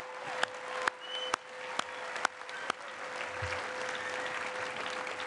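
The university bell struck repeatedly, about two strikes a second, over applause. The strikes stop after about two and a half seconds and the applause carries on.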